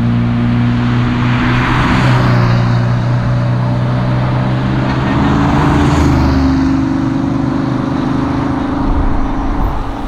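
Ford Mustang GT's V8 engine running at steady revs under way, its pitch stepping up past halfway, over a rushing noise.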